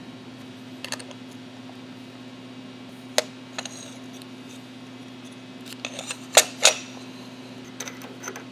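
Light metallic clicks and clinks as a tiny brass 3D-printer nozzle and small tools are handled on a metal fixture plate on a milling machine table, with two sharper clinks about two-thirds of the way through. A steady low hum runs underneath.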